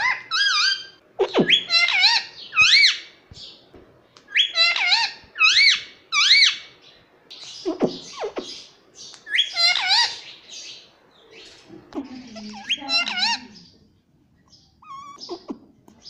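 A pet parrot calling and chattering in bursts of short warbling calls that swoop up and down in pitch, with brief pauses between bursts.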